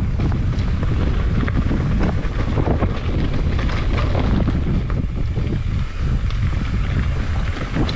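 Strong wind buffeting the action camera's microphone as a mountain bike rides downhill over rough ground. Frequent short rattles and knocks come from the bike.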